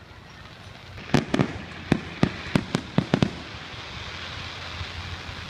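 Fireworks going off: a quick, uneven run of about nine sharp bangs starting about a second in, then a steady hiss.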